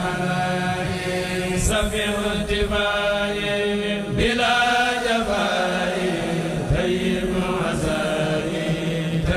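A Senegalese Mouride kourel, a group of men, chanting a xassida religious poem, sung phrase after phrase with no instruments.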